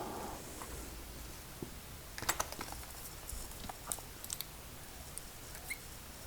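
Scattered small clicks and taps of padlock parts being handled and prodded with a tool, with a quick cluster of clicks a little over two seconds in.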